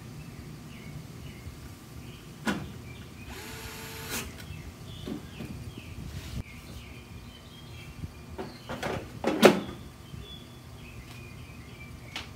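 A small cordless screwdriver's motor whirs for about a second while driving a screw, amid knocks and clatter of parts and tools handled on a table; the loudest knock comes near the end. Birds chirp faintly in the background.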